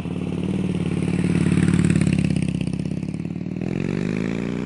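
Motorcycle engine running steadily, then revving with a rising pitch near the end.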